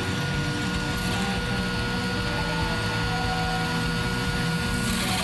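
Drill press motor running steadily at a slow speed setting, with a constant whine and low hum.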